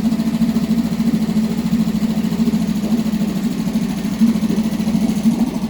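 Mariner 3.5 hp two-stroke outboard motor running steadily with a fast, even beat, choke still partly on, after a carburettor clean and its first start in about four years.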